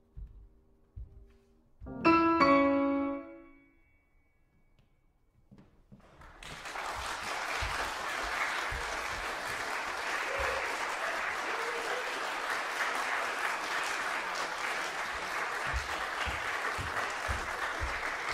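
Grand piano striking a loud final chord about two seconds in, which rings out and fades. After a short silence the audience bursts into steady applause that carries on to the end.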